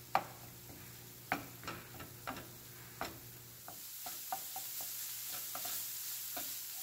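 Wooden spoon stirring and breaking up ground beef in a skillet, with scattered short knocks of the spoon against the pan. A light sizzle of the browning meat underneath grows louder about four seconds in.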